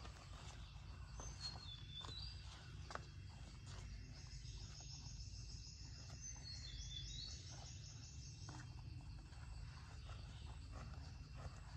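Wild birds calling in forest with short high notes, including a fast trill of rapidly repeated notes from about four to eight and a half seconds in, over a low steady rumble.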